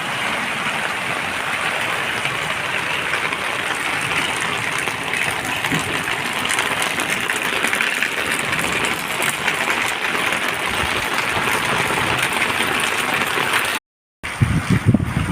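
Heavy rain falling steadily: a dense, even hiss with fine pattering drops. About 14 seconds in the sound cuts out for a moment, then returns with gusts of wind buffeting the microphone.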